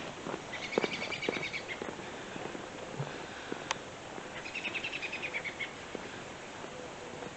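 A bird chattering twice, each time a rapid run of high, repeated notes lasting about a second, with footsteps on pavement underneath.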